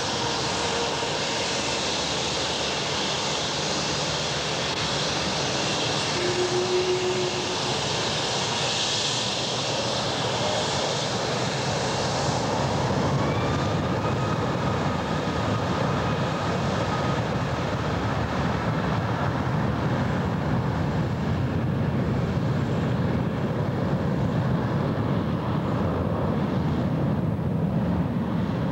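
Twin-engine jet airliner's engines running as it taxis and turns onto the runway: a steady jet roar, with a thin whine rising in pitch about halfway through and a deeper rumble building over the second half.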